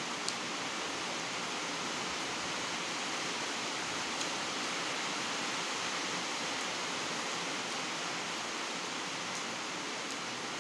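Steady, even hiss of background noise, with a few faint clicks, one just after the start and one about four seconds in.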